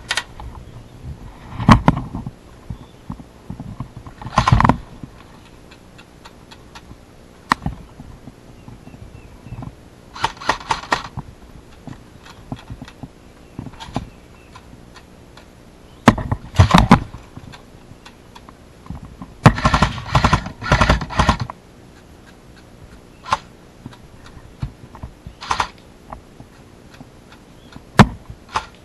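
Airsoft guns firing, in two strings of rapid shots about ten seconds in and again around twenty seconds, with single sharp knocks and thumps in between.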